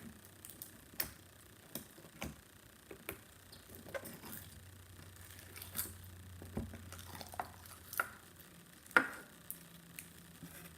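Crunchy, bubbly slime with small beads mixed in being squished and stretched by hand, giving off scattered small pops and crackles about once a second, the loudest near the end.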